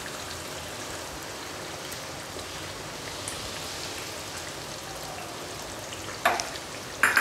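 Tamarind fish curry sizzling steadily in a nonstick pan over a turned-down flame. Two short sharp clicks come near the end.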